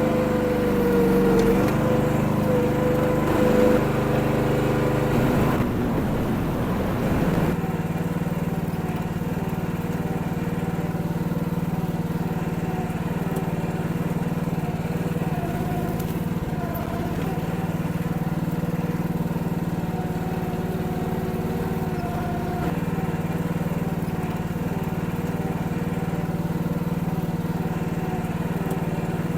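Kymron mini excavator's 14-horsepower Briggs & Stratton engine running, its note shifting during the first seven seconds or so and then holding steady.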